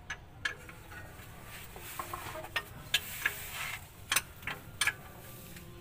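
Hand tools and metal parts clinking and clicking against the underside of a vehicle's transmission in sharp, irregularly spaced knocks, about ten of them.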